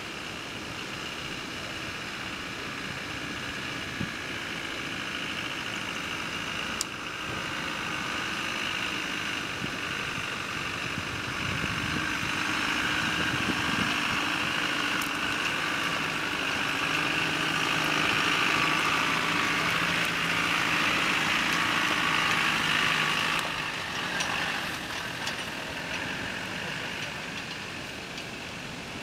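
Land Rover Defender 90 engine running at low speed as the 4x4 crawls over a rocky off-road track, growing louder as it comes close, then dropping off sharply about three-quarters of the way through as it moves away.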